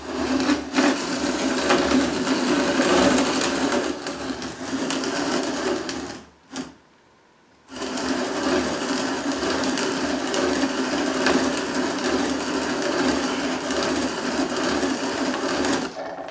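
Wondermill Junior grain mill grinding grain, a steady mechanical grinding. It stops for about a second and a half a little before halfway, then starts again.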